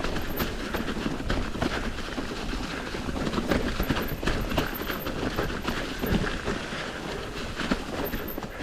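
Mountain bike descending a rough trail: tyres rolling over dirt and rocks, with the bike rattling and clattering in a steady stream of small knocks.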